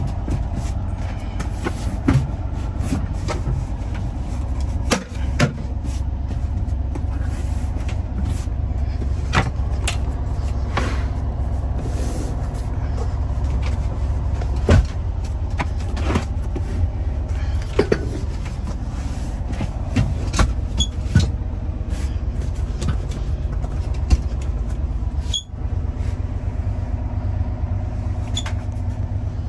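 Classic Volkswagen bus camper's air-cooled flat-four engine idling, a steady low rumble heard from inside the cabin. Scattered clicks and knocks come as seat belts and interior fittings are handled.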